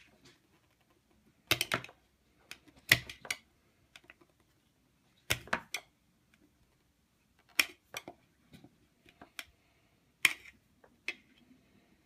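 Table knife prying and knocking at a rigid clear plastic package and its snap-on plastic base: sharp hard-plastic clicks and knocks in short clusters, five main ones spaced two to three seconds apart, with fainter ticks between.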